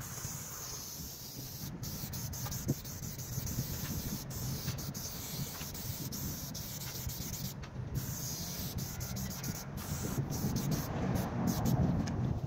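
Aerosol spray-paint can hissing as paint is sprayed onto a wall, in long bursts broken by several brief pauses, over a low rumble.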